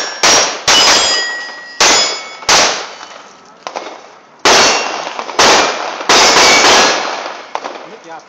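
A string of about nine rapid shots from a Ruger .22 rimfire pistol, some in quick pairs, over the first seven seconds. Steel plate targets ring with a short metallic ping after hits.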